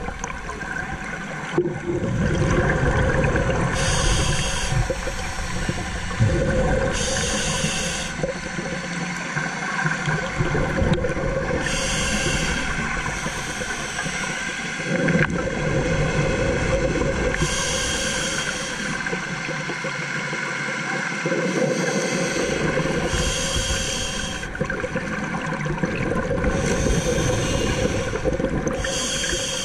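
Scuba diver breathing underwater through a regulator: a short hiss recurs every few seconds, with the gurgling rumble of exhaled bubbles between them, over a steady hum.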